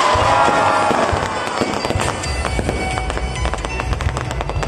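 Aerial firework shells bursting overhead: dense crackling and popping throughout, with a held whistling tone over the first second and a half and a low rumble from about two seconds in.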